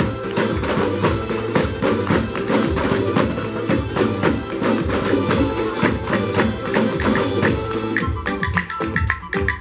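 Adyghe dance music played by a percussion ensemble: fast, steady hand percussion with jingling, tambourine-like strikes over a melodic line.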